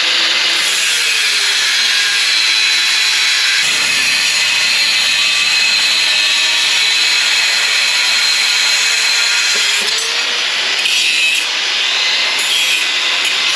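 A power tool cutting a stainless steel flat bar: a loud, continuous, high-pitched grinding whine whose pitch sags slightly now and then as the cut loads the motor.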